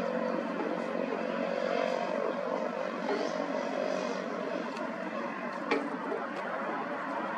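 Cessna 185 amphibian's piston engine and propeller running at low taxi power, a steady drone. One sharp click sounds a little past halfway through.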